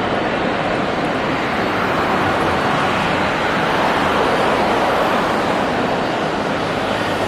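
Jet aircraft engine noise: a steady rushing roar that swells slightly midway.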